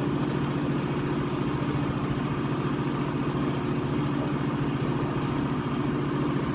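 Hydraulic power unit of a 50-ton Betenbender press brake running steadily: its 10 hp electric motor and pump give a constant even hum.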